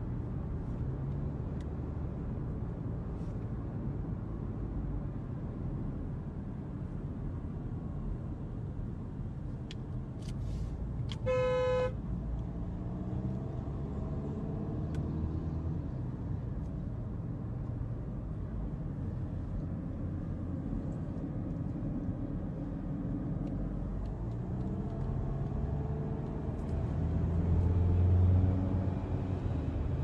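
Steady road and engine noise heard from inside a moving car, with one short car horn toot about eleven seconds in. Near the end a low rumble swells up and dies away.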